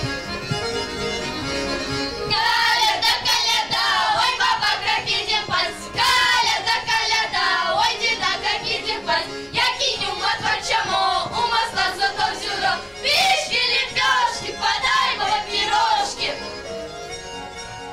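A group of young girls singing a Mordovian Christmas carol in chorus and clapping their hands, over instrumental backing music. The singing comes in about two seconds in after a short instrumental passage and fades near the end.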